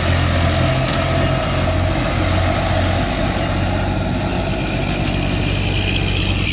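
A heavy diesel engine idling steadily.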